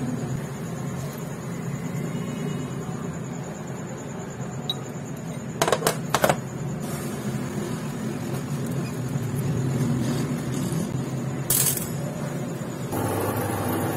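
Small steel engine parts clinking on a metal workbench as a connecting rod and its needle-roller bearing are handled: three quick clinks about six seconds in and one more near the end. A steady low machine hum runs underneath.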